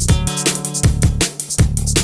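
Background music: an electronic track with a steady drum beat and sustained synth notes.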